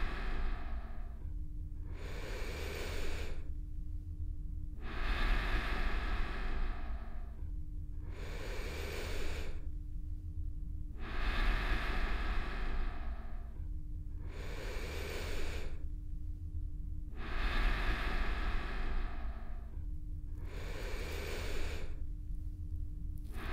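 Close-miked, slowed breathing: a long out-breath and then a shorter, hissier in-breath, repeating about every six seconds, over a steady low rumble. A faint held hum sounds in the gaps between breaths.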